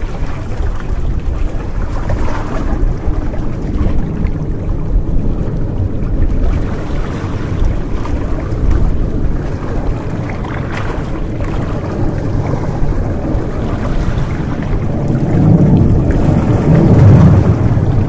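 Small sea waves lapping and washing against shoreline rocks, with a low rumble throughout that grows louder near the end.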